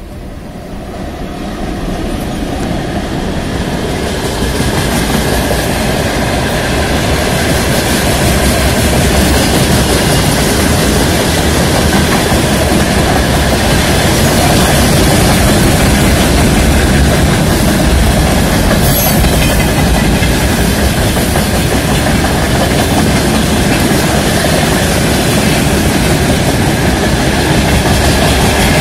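Freight train hauled by a VL80T electric locomotive approaching and then passing close by, its open gondola wagons' wheels clattering along the rails. The noise swells over the first few seconds and then holds steady and loud as the wagons roll past.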